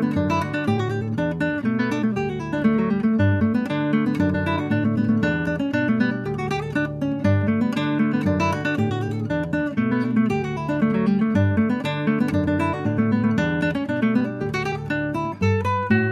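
Background music: acoustic guitar played with quick plucked and strummed notes.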